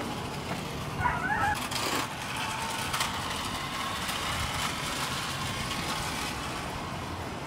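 Small electric motor of a toy radio-controlled car whirring as it drives, with a brief high squeal about a second in.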